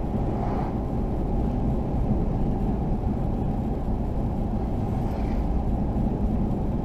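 Steady road and engine noise of a car driving at highway speed, heard from inside the cabin. Two oncoming vehicles pass in the other lane, a faint swish each, about half a second in and again about five seconds in.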